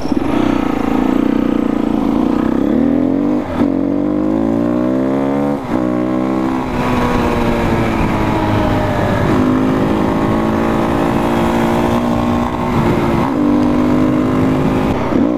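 Husqvarna 510 SMR single-cylinder supermoto engine being ridden hard with its dB killer fitted. The pitch climbs steeply and drops sharply at gear changes about three and a half and five and a half seconds in, then the engine runs at a steadier speed.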